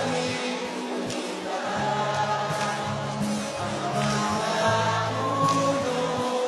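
A live acoustic-guitar ballad with many voices singing the lyrics together, a large audience singing along.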